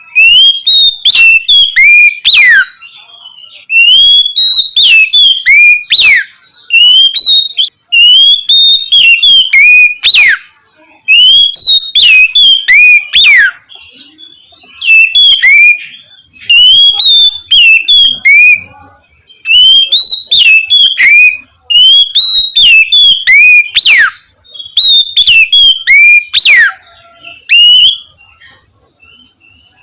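Oriental magpie-robin (kacer) singing its loud, clear 'ngeplong' song. It repeats phrases of whistled notes, some sliding steeply down, in bursts of about two seconds with short pauses between.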